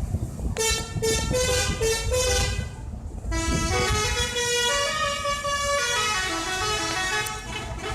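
Indonesian bus 'telolet' musical horn playing a tune: a quick run of short notes, then a longer melody that climbs and falls again, over low engine and street rumble.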